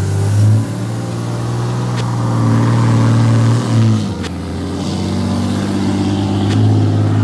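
Pickup truck engine revving hard under load as its tires spin in soft beach sand while the truck struggles to get out. The pitch climbs, drops sharply about four seconds in, then builds again.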